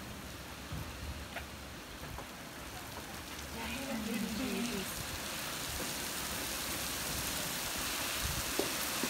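Steady rain falling, growing heavier about halfway through, with a few sharp ticks near the end.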